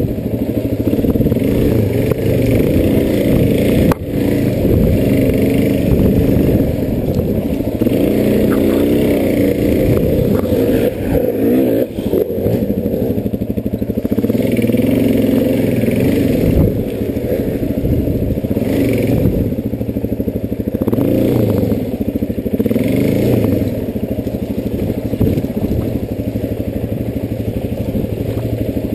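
Enduro dirt bike engine running hard, its pitch climbing and dropping every few seconds as the throttle is worked, with a few brief knocks over rough ground.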